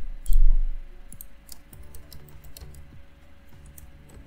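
Typing on a computer keyboard: a quick string of separate keystrokes. A loud low thump comes about half a second in.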